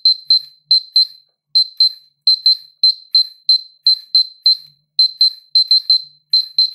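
Polimaster PM1703GNA dosimeter sounding short high beeps at uneven intervals, about three to four a second, as it registers gamma radiation from a thoriated arc-lamp electrode held against it.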